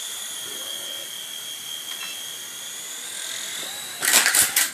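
A small electric helicopter's motor and rotor whining steadily at a high pitch. Near the end comes a loud rattling clatter.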